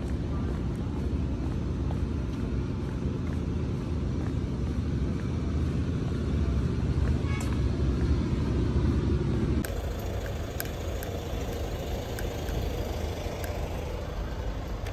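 Outdoor street noise: a low, steady rumble that gives way abruptly, about ten seconds in, to a quieter background with a few light clicks.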